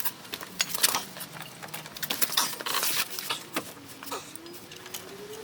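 Hands fitting a new serpentine belt onto the engine pulleys: irregular clicks, knocks and rubbing, with a thin squeak that rises slowly in pitch during the last second or so.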